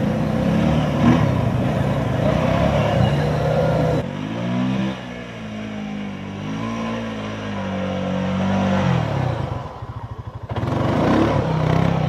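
Off-road vehicle engine running and being revved, its pitch rising and falling several times. Shortly before the end it drops to a quieter, pulsing low idle, then runs loud again.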